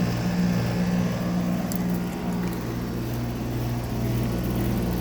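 Rheem outdoor condensing unit running: a steady compressor hum under the even rush of the condenser fan.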